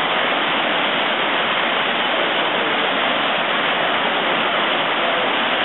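Flooded creek, its muddy water rushing steadily and loudly past and over a concrete edge.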